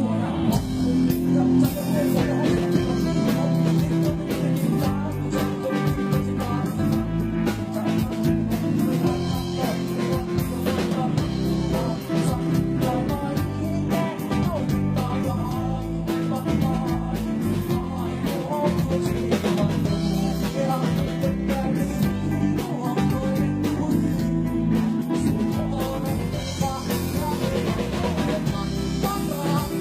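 A Thai band playing live: singing over electric guitar and a drum kit, with a steady beat throughout.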